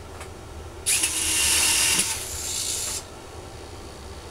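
Electric retractable landing gear of an RC model F4U Corsair cycling, the small geared motors whirring for about two seconds before stopping abruptly.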